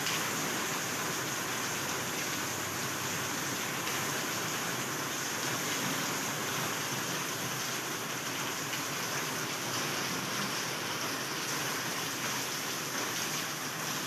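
Heavy rain pouring steadily, a dense even hiss of downpour with no thunder or distinct strikes.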